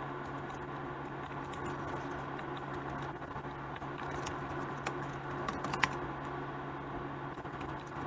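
Typing on a computer keyboard: irregular key clicks, with one louder click a little before six seconds, over a steady low hum.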